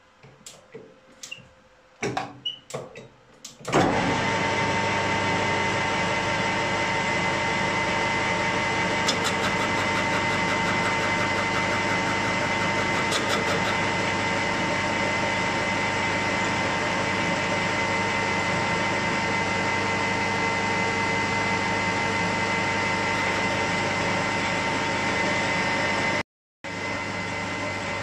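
A few clicks and knocks, then a metal lathe starts up and runs steadily with a constant whine and hum from its motor and gearing. It cuts out for a moment near the end.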